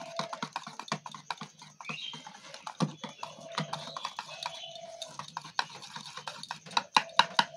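Wire whisk beating jalebi batter in a steel bowl: fast, continuous clicking of the tines against the bowl, louder and more regular near the end.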